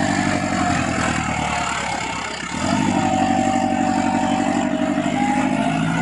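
Massey Ferguson 375 tractor's four-cylinder diesel engine working hard, pulling a 13-tine cultivator set full depth with the lift lever all the way down. A steady drone that sags a little about two seconds in and picks up again.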